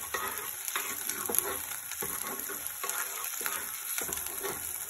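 Chopped onions sizzling in hot oil in a dark kadai while a metal spoon stirs and scrapes them around the pan in repeated strokes, about two a second. The onions are being browned and are nearly light brown, the base of a dal tadka.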